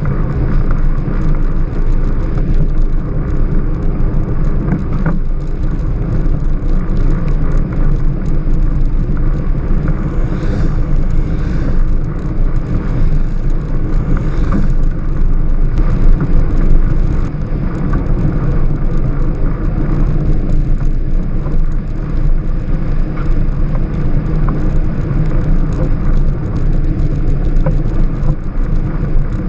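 Steady low rumble of a Strada Carbon velomobile rolling along a wet road: tyre and road noise carried through the carbon shell, with wind.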